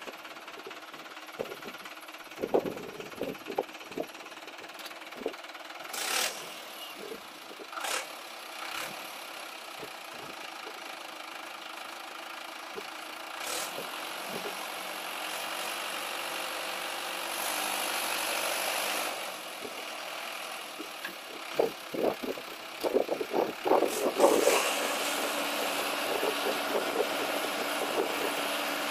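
Swaraj 843 XM tractor's three-cylinder diesel engine running steadily while the tractor is bogged in deep mud. The engine runs louder for a couple of seconds past the middle. There are scattered knocks, and a burst of clattering comes a few seconds before the end.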